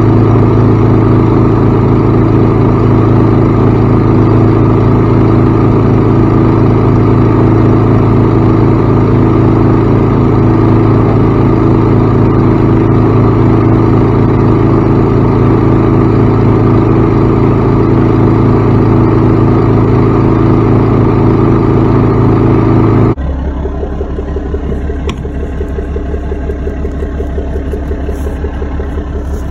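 Mack dump truck's diesel engine running steadily, loud and close. Near the end it cuts abruptly to a quieter, lower steady engine hum.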